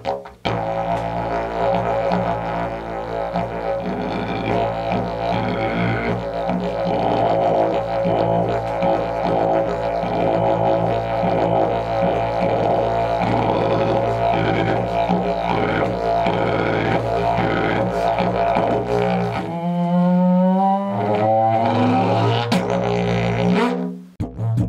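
Phoenix didgeridoo by Luco de Merbo, keyed to A1 (about 55 Hz), droning with rhythmic overtone patterns. About twenty seconds in, the drone breaks for a few seconds of higher, sliding tones, then resumes. The sound is picked up by a Canon EOS 800D camera's microphone about 125 cm away and is heavily compressed.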